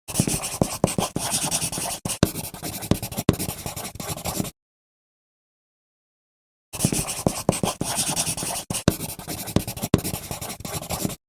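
A burst of dense, scratchy, crackling noise peppered with clicks, about four and a half seconds long, cutting off into dead silence and then played again about two seconds later.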